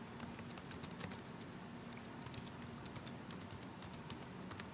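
Typing on a computer keyboard: a quick run of quiet key clicks as a password is entered, with one slightly louder keystroke near the end.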